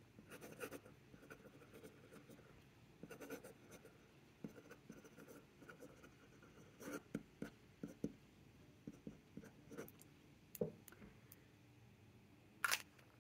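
Faint scratching of a pen writing by hand on a paper sticky note, in short strokes at irregular intervals, with one sharp click near the end.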